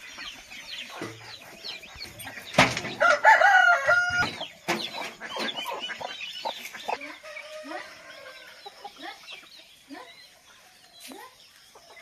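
Chickens clucking and calling while they peck at grain, with a rooster crowing loudly about two and a half seconds in for roughly a second and a half.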